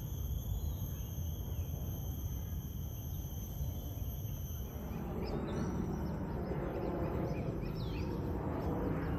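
Insects buzzing steadily with a low outdoor rumble; from about five seconds in a broad rushing noise swells as a jet aircraft passes overhead.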